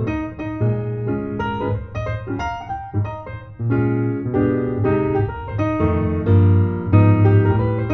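Background piano music: a melody of quickly changing notes over low bass notes.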